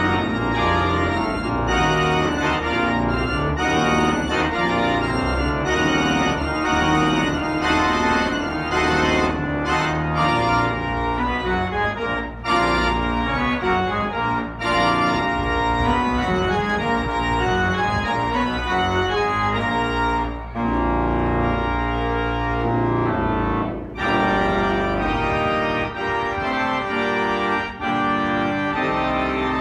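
Spreckels Organ, a large pipe organ, playing a loud, full passage of dense sustained chords, with a few short breaks between phrases.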